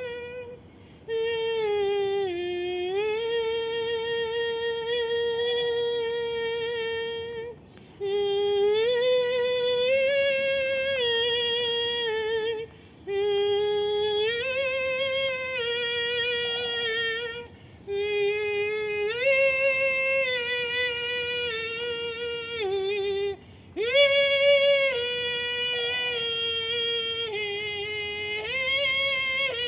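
A woman singing wordless vocal channeling: long held vowel tones that step and glide between pitches, sung in five phrases of several seconds each with short breaths between them.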